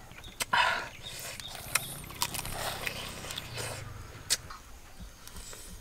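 Close-up eating sounds of crab stir-fried with egg: the crab is bitten, chewed and sucked from the shell, with irregular sharp crunches and clicks of shell and a short wet burst about half a second in.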